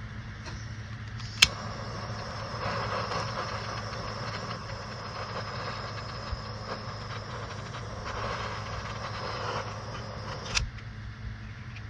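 A small gas torch clicked alight, then burning with a steady hiss for about nine seconds before it is shut off with a click, shrinking heat-shrink tubing over wire splices. A steady low hum runs underneath.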